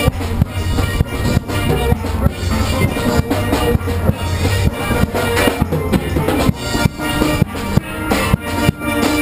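Live steel drum band playing: steel pans struck with mallets over drums keeping a steady beat.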